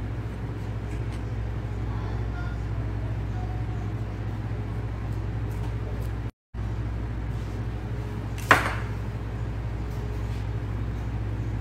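A steady low hum, broken by a complete dropout of the sound about six seconds in, with one sharp knock about eight and a half seconds in, the loudest moment.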